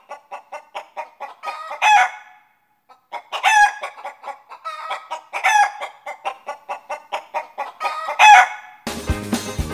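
Chicken clucking in quick runs of short clucks, broken by about four loud, short squawks. Upbeat music with a beat starts near the end.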